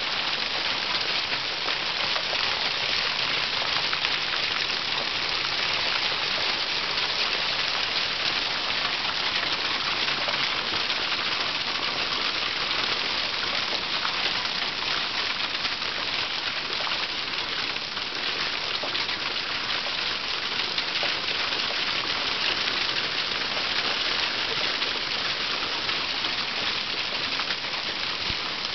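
Nearly marble-sized hail falling steadily, a dense hiss made of countless small ice impacts on the ground and garden surfaces.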